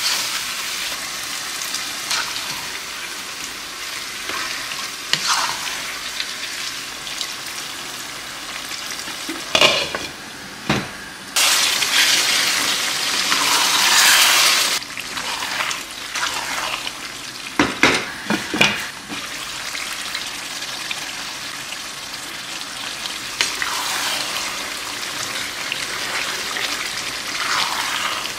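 Food sizzling as it fries in a pot, with a spoon clanking and scraping against the pot a few times. Near the middle the sizzle swells loudly for about three seconds.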